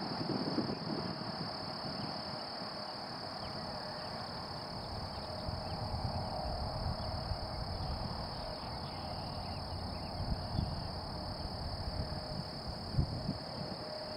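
Distant single-engine propeller plane running faintly on the runway, its engine note swelling a little midway and near the end. Over it lie a steady high insect drone and a rumble of wind on the microphone.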